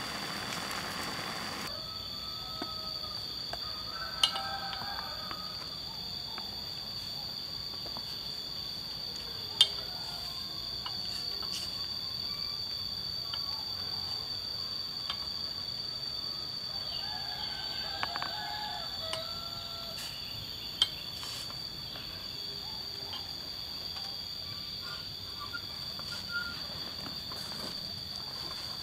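Steady, high-pitched buzzing of forest insects, with a few faint bird chirps and several sharp clicks. A rushing noise cuts off about two seconds in.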